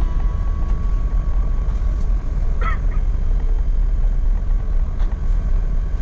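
Steady low rumble and airflow noise inside the cabin of an Airbus A380 rolling along the ground, from its engines and the ground roll.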